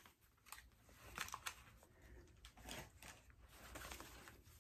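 Faint handling noise: clothing rustling with a few light clicks and taps as a belt holster is handled and a shirt and waistband are straightened.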